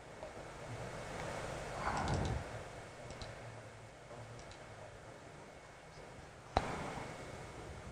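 Faint steady room noise with a few light clicks from a laptop's mouse and keys, and one sharper, louder click or knock about six and a half seconds in.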